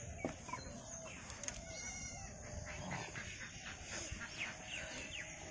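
Farmyard birds chirping in many quick short notes, with a fowl-like call about two seconds in, over a thin steady high-pitched tone.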